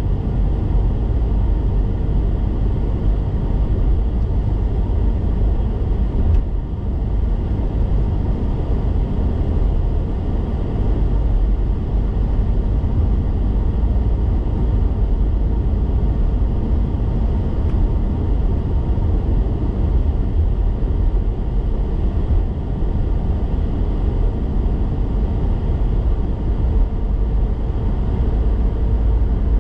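Steady road and engine noise inside a moving car's cabin: an even low rumble with no sharp sounds.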